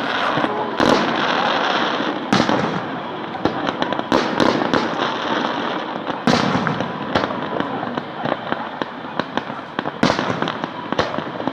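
Fireworks display: shells bursting in sharp bangs, some single and some in quick clusters, over a continuous noisy background.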